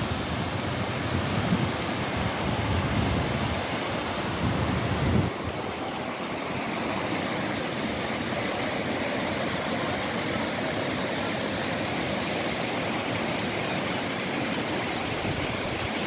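River water pouring over a concrete weir and down its stepped spillway: a steady, continuous rushing. A low rumble sits under it for the first five seconds or so, then drops away.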